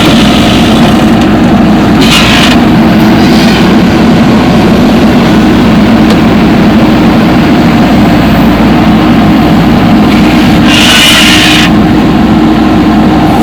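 Heavy diesel engine of earth-moving machinery running steadily under load, with a few short hissing bursts over it, the longest near the end.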